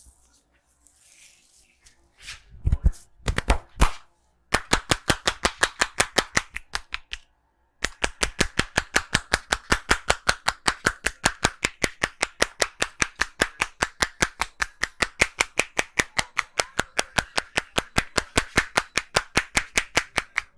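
Indian head massage percussion: the barber's hands tapping rapidly on the head in a fast, even run of sharp claps, about six a second, with a brief pause about seven seconds in. A few heavier slaps come just before the run starts.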